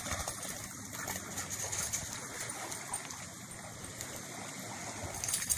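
Two dogs playing at a river's edge: soft dog noises and paws splashing through shallow water over a steady outdoor hiss.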